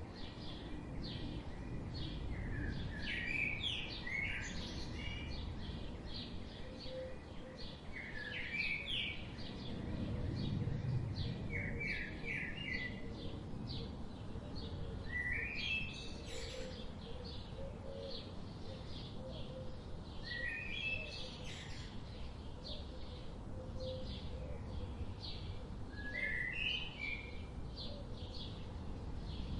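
Wild songbirds chirping and singing: a steady scatter of short high chirps, with a brief stepped song phrase repeating every few seconds. A low rumble runs underneath, swelling about ten seconds in.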